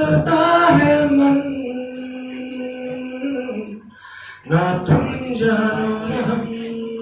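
A young man singing without accompaniment into a handheld microphone, holding long steady notes in two drawn-out phrases, with a short breath between them about four seconds in.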